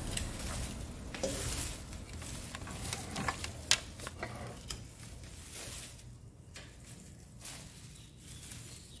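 Dry fern fronds rustling and crackling as they are handled and pulled out during pruning, with occasional sharp snips of pruning shears; the loudest click comes a little past halfway.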